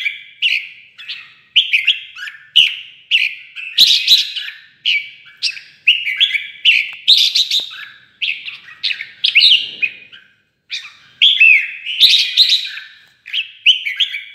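Red-whiskered bulbul singing its competitive fighting song: a fast run of short chirping phrases, one after another, with a brief pause about two-thirds of the way through.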